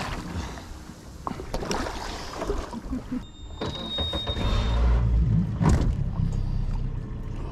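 Knocks and bumps on a fibreglass boat deck, with water splashing at the hull where a large tarpon is held alongside. A low rumble swells about four and a half seconds in.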